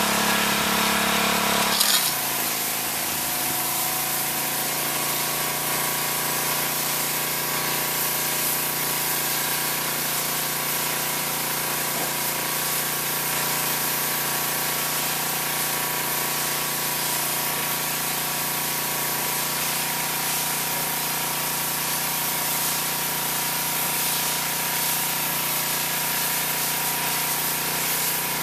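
Gas-engine pressure washer running, its high-pressure water jet hissing steadily against painted house siding over the engine's steady drone.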